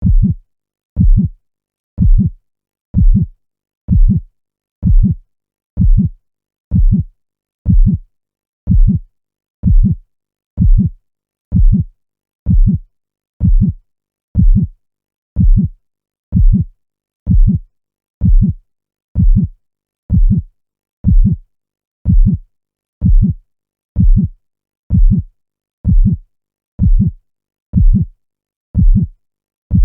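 Steady heartbeat: a low, quick double thump (lub-dub) about once a second, with silence between beats.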